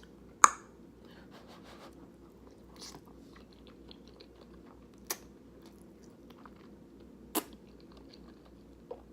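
Close-up chewing of a mouthful of creamy, cheesy pasta: soft, wet mouth sounds with faint ticks. There is a loud, sharp click about half a second in and two smaller clicks later.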